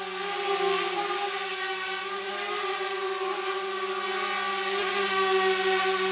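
Steady buzzing whine of a quadcopter drone's motors and propellers, with a brief dip in pitch about a second in.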